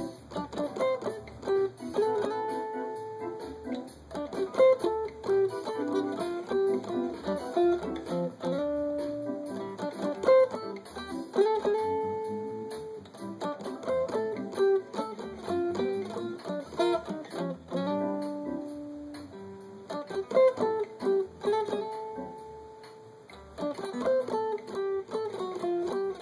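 Hollow-body archtop jazz guitar played unplugged, so only its acoustic body sounds: quick runs of single picked notes with some notes held longer, in a jazz solo style.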